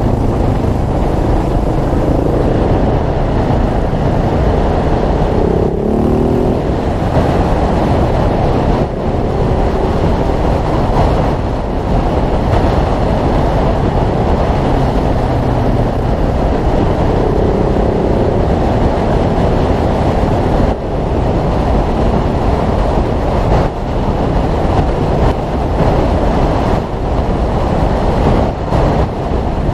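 Single-cylinder dual-sport motorcycle riding along under way, its engine running beneath a heavy rush of wind on the microphone. The revs climb briefly a couple of times and ease off now and then.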